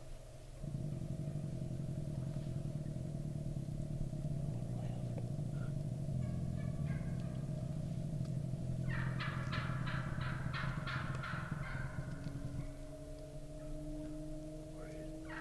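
Wild turkey gobbling, a rapid rattling call of two to three seconds that starts about two-thirds of the way in and begins again at the very end. A steady low rumble runs under it from about a second in and stops just after the gobble.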